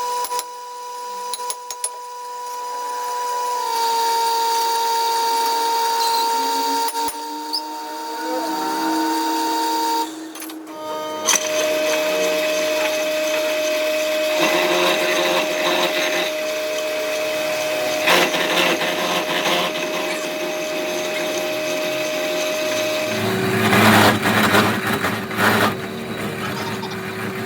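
Workshop power tools running with a steady motor whine and rough machining noise over it; the pitch of the whine jumps to a new steady note several times, about 4, 11 and 23 seconds in.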